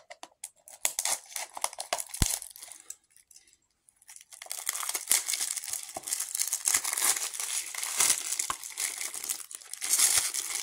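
Plastic shrink-wrap being torn open and peeled off a Blu-ray case: crinkling with a sharp click about two seconds in. After a brief lull the crinkling resumes and carries on densely.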